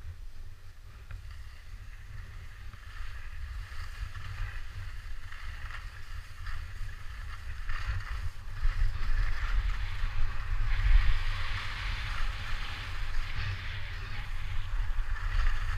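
Wind rumbling on the microphone during a downhill run on a groomed ski piste, with the hiss of sliding over packed snow. The hiss and rumble grow louder from about halfway through as speed builds.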